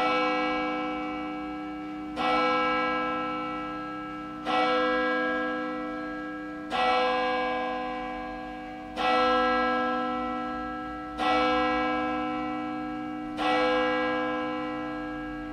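A single church bell tolling steadily, struck seven times about every two and a quarter seconds, each stroke ringing on and fading as the next one sounds.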